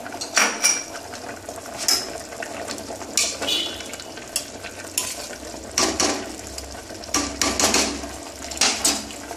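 A metal spoon stirring stew in an aluminium pressure cooker, scraping and clinking against the pot's side and bottom about once a second, over a low steady hiss.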